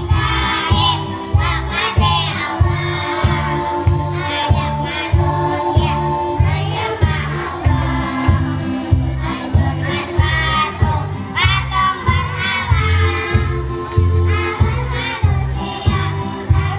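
Kindergarten children's choir singing over music with a steady bass beat.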